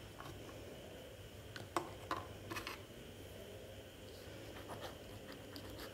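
Faint scratches and light taps of a pen on paper, a few short strokes about two seconds in and smaller ticks later, over a steady low room hum.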